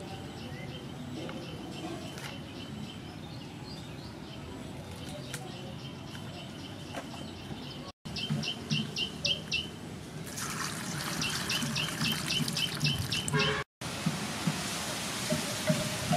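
Birds chirping in runs of short, evenly repeated high notes over outdoor ambience. In the last couple of seconds, water trickles and splashes as leeks are rinsed in a metal bowl of water.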